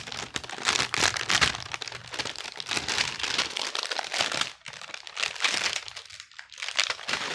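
Clear plastic wrapping crinkling and rustling as it is handled and pulled open, in irregular crackles that ease off briefly a little past halfway.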